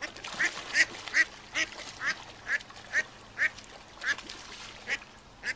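Mallard hen quacking in rapid alarm, about a dozen short quacks evenly spaced, as a predatory fish attacks her brood, over the sound of splashing water.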